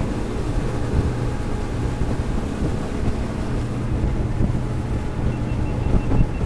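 Boat running at speed on twin 300 hp outboard motors: a steady low engine drone, with wind buffeting the microphone.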